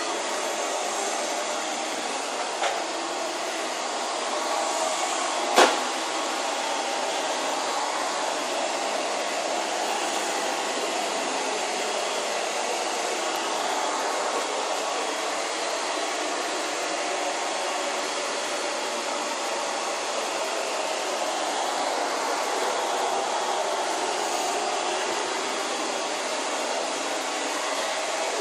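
Vacuum cleaner running steadily, with a sharp knock about five and a half seconds in.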